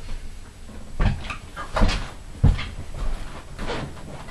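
Several short dull knocks and bumps, spread over a few seconds, while a towel is handled inside a fiberglass bathtub.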